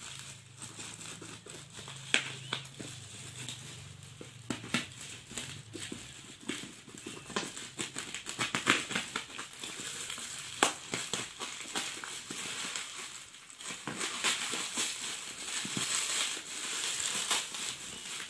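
Plastic wrapping crinkling and rustling as it is cut with scissors and pulled off a boxed polisher, with many irregular sharp clicks and crackles.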